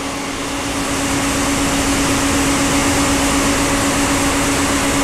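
Power-supply cooling fan running with a steady whir and a low, even hum, swelling slightly over the first second or so as power is switched on to the hash board.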